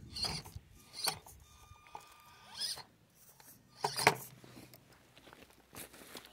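Axial SCX24 Jeep Gladiator micro RC crawler climbing over rocks: several short, irregular scrapes and clicks of tyres and chassis on stone, with a faint thin motor whine for a moment near the middle.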